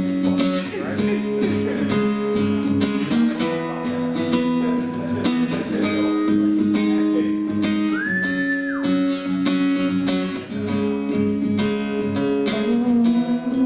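Acoustic guitar strumming chords in an instrumental passage of a song, with a brief high held tone about eight seconds in.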